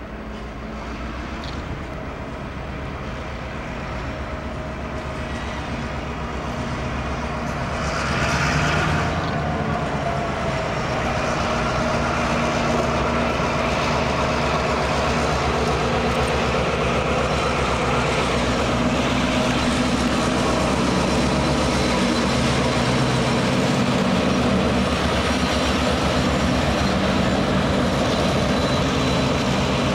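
Diesel engines of a pair of EMD GP38-type freight locomotives running as the train approaches, growing steadily louder as they draw close and pass by. A brief hiss about eight seconds in.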